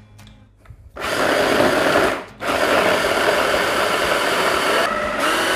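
Electric chopper, a hand-blender motor on a chopper bowl, running and grinding breadcrumbs, cheese, zucchini and basil into a crumb filling: a short burst of about a second, a brief stop, then a longer steady run.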